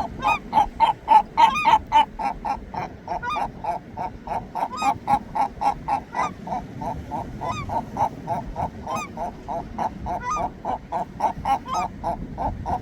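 A flock of gulls calling: a steady stream of short, overlapping calls, several a second, with now and then a longer cry that rises in pitch. The calls are loudest in the first two seconds.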